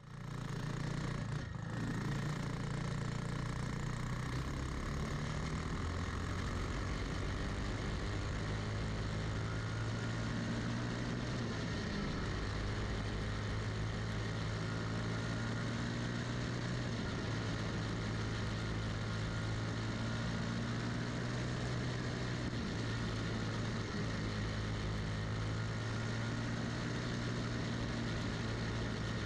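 Briggs & Stratton Animal single-cylinder four-stroke kart engine running hard at racing speed on a dirt oval, fading in at the start and then holding a steady note, with slight dips in pitch a few times through the turns. Wind and track noise rush over the onboard microphone.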